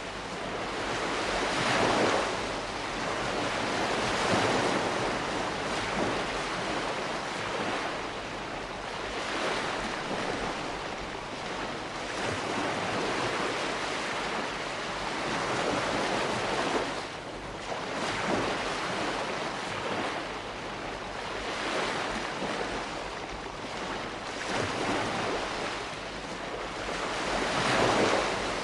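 Calm sea wash: small waves washing in and drawing back in a continuous hiss that swells and eases every few seconds.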